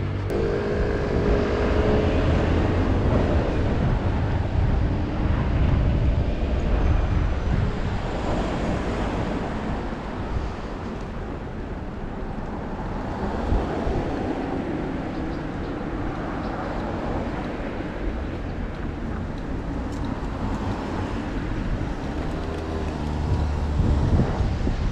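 Street traffic: cars running along the road, with wind noise on the microphone.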